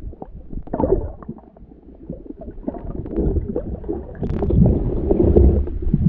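Muffled underwater rumble and crackle of water moving around a camera carried by a swimming diver. It grows louder about four seconds in.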